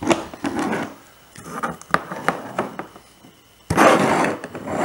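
Hands and plastic Play-Doh tools knocking and rubbing on a tabletop: a few light clicks and scrapes, then a sharp knock about three-quarters of the way in and a brushing sound as a hand sweeps across the table.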